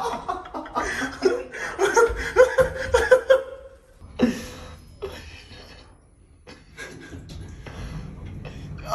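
People laughing in quick, rapid bursts for about the first three and a half seconds, then fainter scattered sounds.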